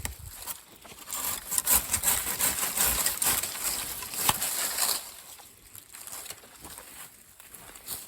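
Dry wood and brush being worked by hand: rasping, scraping strokes with small cracks and snaps, loudest for about four seconds from a second in, then quieter.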